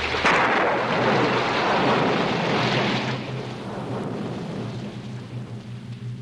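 Sound effect of a heavy rainstorm. It comes in suddenly and loud, then eases to a softer, steady rush of rain after about three seconds.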